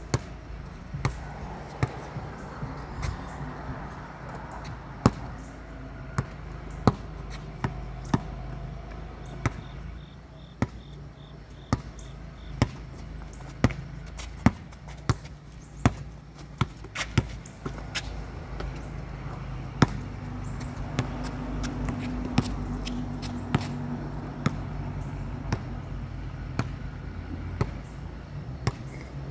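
Sharp, short thuds repeating irregularly about once a second over a steady low hum.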